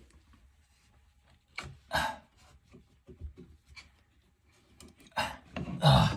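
Scattered short knocks, scrapes and rubbing from hands and tools working on faucet fittings under a bathroom sink, loudest near the end.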